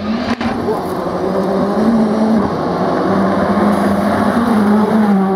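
Škoda Fabia R5 rally car's four-cylinder turbo engine running hard at high revs as the car approaches, the pitch holding fairly steady. The pitch dips briefly about two and a half seconds in and drops away near the end.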